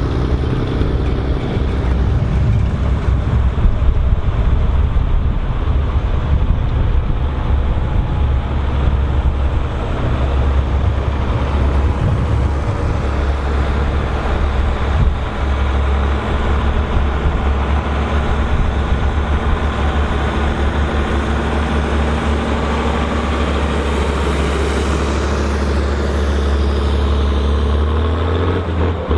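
Volvo BM turbo tractor's turbocharged diesel engine running steadily with a deep drone. A faint high whine falls in pitch near the end.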